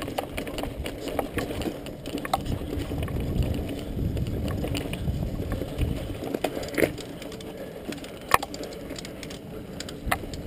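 Mountain bike moving over a rough dirt trail: a low rumble and rattle from the tyres and frame, with scattered sharp knocks and clicks, the loudest about eight seconds in.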